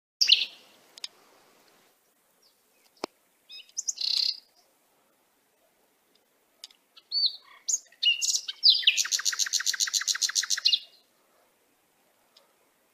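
Birds chirping in short separate calls with pauses between them, then a rapid trill of about eight even notes a second lasting about two seconds. A single sharp click comes about three seconds in.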